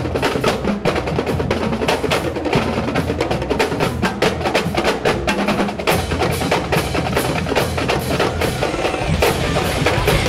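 Marching drumline playing a fast, steady rhythm on snare drums, bass drums and cymbals.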